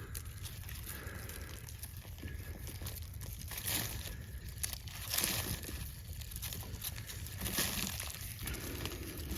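Loose garden soil rustling and crumbling as it is worked over, with many small crackles and a few louder scrapes, over a low steady rumble.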